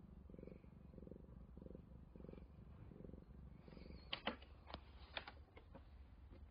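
Cat purring softly close up, the low purr swelling and fading with each breath. About four seconds in, a few sharp clicks and taps cut across it.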